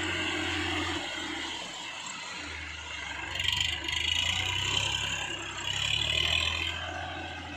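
Massey Ferguson 7250 DI tractor's three-cylinder diesel engine running steadily as it pulls a trailer through shallow water, with water splashing from the tyres, loudest twice, about midway and near the end.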